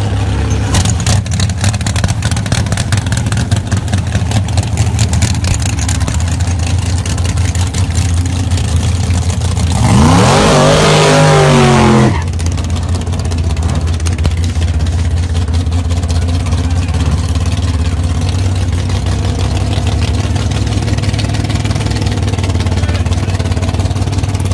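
Drag race cars' engines rumbling steadily at the line, then about ten seconds in a hard launch: engine pitch climbs steeply for about two seconds, the loudest part, and cuts off suddenly.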